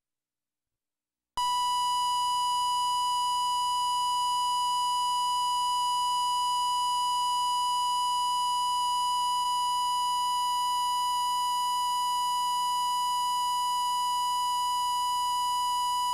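Steady 1 kHz line-up test tone played with colour bars on a VHS tape, the reference tone for setting the playback volume. It starts about a second and a half in after dead silence and holds one unchanging pitch.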